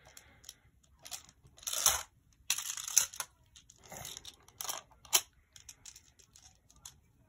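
Plastic magnetic building tiles being handled: irregular clacks, clicks and crunchy rustles, a few louder ones about two, three and five seconds in.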